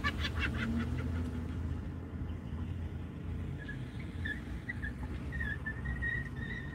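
Steady low vehicle rumble, with a quick run of about eight sharp chirps in the first second and a wavering, whistle-like high tone coming and going through the second half.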